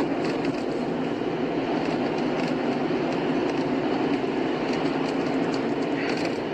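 A car driving steadily at highway speed: constant tyre and road noise with a few faint ticks over it.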